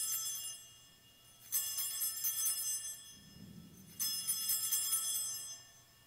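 Altar bells, a cluster of small bells shaken together, ringing in short shimmering peals to mark the elevation of the chalice at the consecration. The end of one peal fades early on, then two more follow about a second and a half in and about four seconds in, each lasting about a second and a half.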